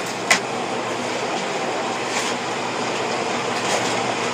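Steady mechanical hum and rushing noise, with one short sharp click about a third of a second in.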